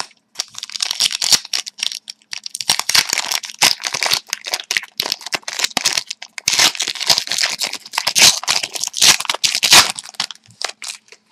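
Trading card pack wrappers being torn open and crinkled by hand, an irregular run of crackling and ripping that stops about a second before the end.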